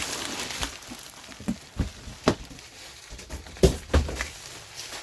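Packaging and pieces of a new soap mold being handled: a rustle of wrapping, then a series of sharp knocks and clacks as parts are moved and set down, the loudest near the end.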